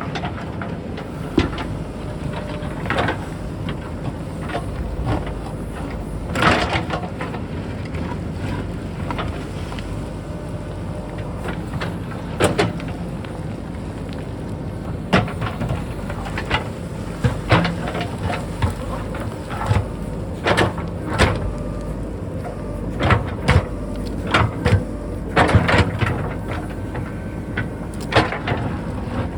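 JCB backhoe loader's diesel engine running steadily while it digs, with repeated sharp knocks and clatters from the digging, coming more often in the second half.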